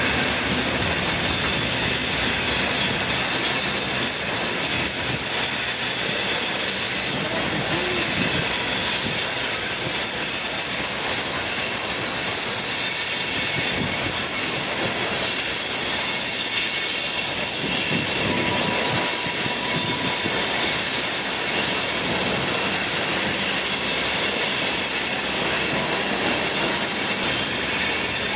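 Freight train of covered hopper cars rolling steadily past at close range: continuous wheel-on-rail noise with faint high-pitched wheel squeal.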